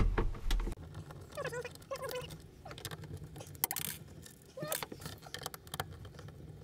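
Hand work with a screwdriver on a skylight's interior trim: a sharp knock at the start, then scattered clicks and several short squeaks.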